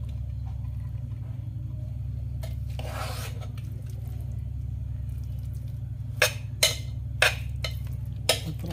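A steel spoon scooping biryani rice in a non-stick kadai, with a short scraping rustle, then about five sharp taps of the spoon against the pan or plate near the end, over a steady low hum.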